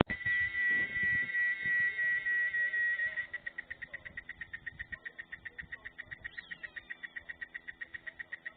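Cicada singing: a loud, steady high-pitched buzz for about three seconds, which then drops quieter into a rapid, even pulsing of the same tone, about eight pulses a second.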